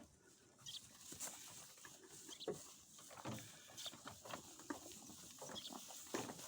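Goats moving about in hay: faint rustling with many scattered light clicks and taps.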